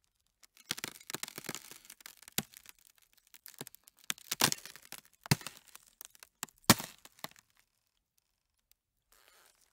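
Ice creaking and cracking: a quick, irregular run of sharp cracks and snaps over several seconds, the loudest one about seven seconds in, then it falls almost silent.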